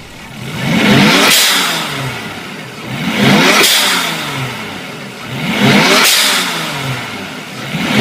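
A turbocharged engine is revved repeatedly, about every two and a half seconds. Each rev ends in a loud hiss from a GReddy FV blow-off valve venting boost as the throttle shuts, three times in all.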